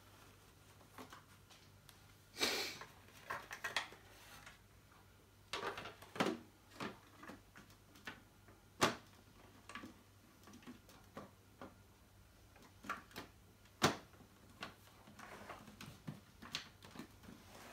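Hands handling and closing up a vacuum cleaner, its dust bag tucked in: scattered clicks and knocks with short scrapes and rustles, the sharpest knocks about 9 and 14 seconds in.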